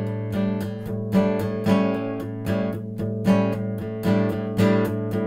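Acoustic guitar strummed in a steady rhythm on an A7 chord with the open A string ringing underneath, the third moving to a sus4 and back.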